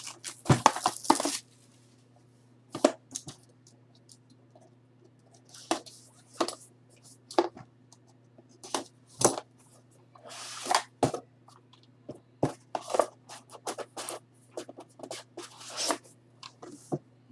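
A sealed trading-card box being slit and torn open by hand: scattered scrapes, crinkles and tearing of plastic wrap and cardboard, with a steady low hum underneath.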